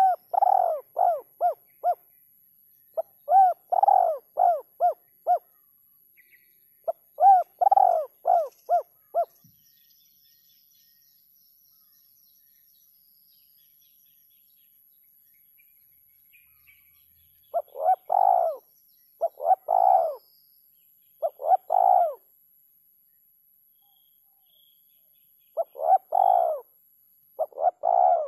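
Spotted dove (terkukur) cooing in repeated phrases of short, rounded notes, the 'kuk 3' call. There is a pause of about eight seconds midway before the cooing resumes.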